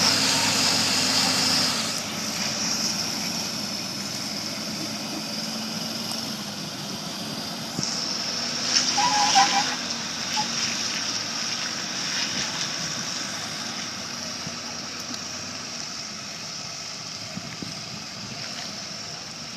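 Pickup truck engine running under load, straining to haul a large boat on its trailer up a boat ramp, with a steady hiss over it. About nine seconds in there is a louder stretch with a brief high-pitched sound.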